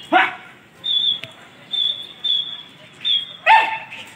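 Pigeon keeper's short, high whistle blown over and over, about once a second, to the flock circling overhead. Two louder falling cries cut in, one near the start and a sharper one about three and a half seconds in.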